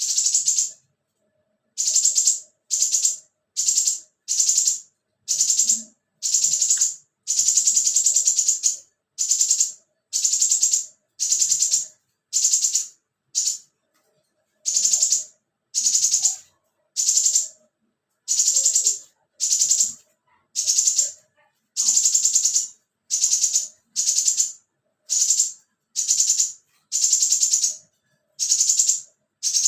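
Scarlet minivet (sepah raja) giving harsh, high, buzzy rattling calls, one burst about every second, each lasting half a second to a second, with complete silence between them.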